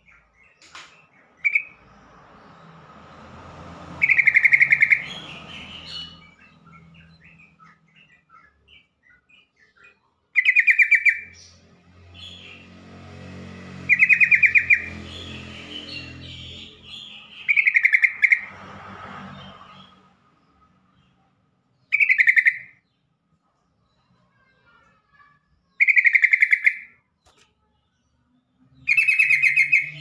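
Yellow-vented bulbul (trucukan) singing: short, loud phrases of rapid notes, repeated about every three to four seconds, with softer twittering between them.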